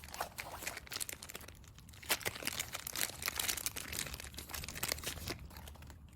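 Irregular rustling and crinkling with scattered light clicks, from handling a CNC tool-changer gripper.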